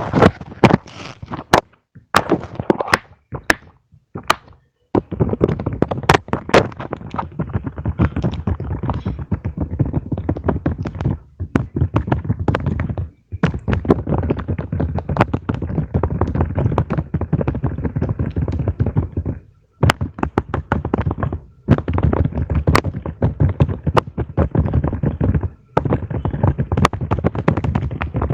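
Plastic fidget toys being handled and played with: a few separate taps and clicks, then long runs of rapid, dense clicking and tapping with brief pauses between runs.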